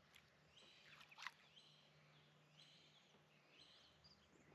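Faint birdsong: a bird repeats a short high chirping call about once a second. A couple of light clicks come a little over a second in.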